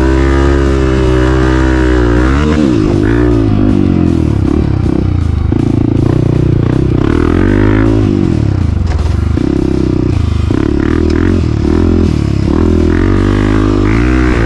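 Honda CRF250F's single-cylinder four-stroke engine running under a rider's throttle, its pitch rising and falling with the revs, under a backing music track.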